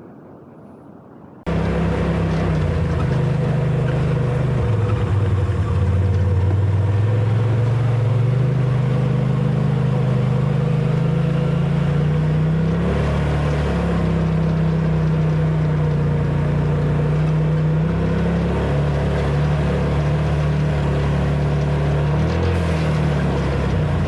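A vehicle engine running under way, cutting in suddenly after a second and a half. Its pitch holds, climbs slowly and drops in steps as the throttle and gears change.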